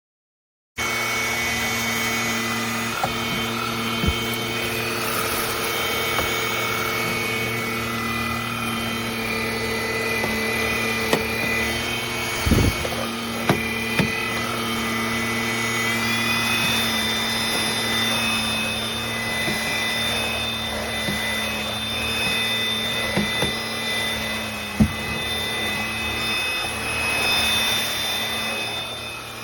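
MBYULO 450 W cordless stick vacuum running, a steady motor whine with scattered small clicks as it picks up debris. About halfway through, its high whine steps up in pitch, as the motor speeds up.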